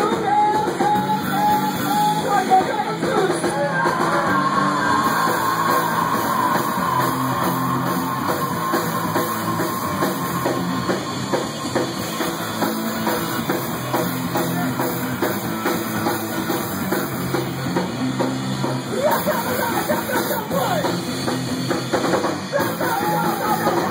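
Rock music with a drum kit keeping a steady beat under pitched instruments, in a loud, fast punk or heavy rock style.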